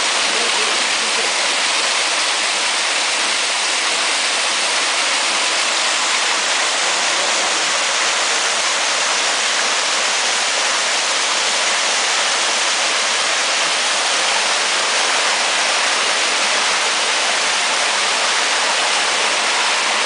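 Steady, unbroken rush of a waterfall pouring over rocks into a pool and on down a rocky mountain stream.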